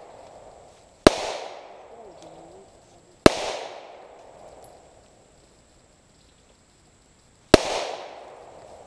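Three gunshots from a Ruger P89DC 9 mm pistol: one about a second in, another two seconds later, and a third near the end after a longer pause. Each shot has an echo that trails off over about a second.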